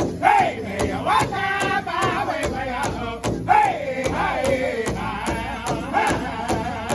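Powwow drum group: men singing a powwow intertribal song in unison over a large powwow drum beaten together with padded sticks. The drum keeps a steady beat of about three strokes a second, and the sung phrases slide downward in pitch.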